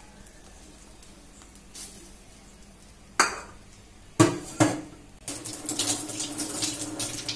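Metal utensil clanking against metal cookware: three sharp ringing knocks in the middle, then about two seconds of rapid metal-on-metal clattering and scraping near the end.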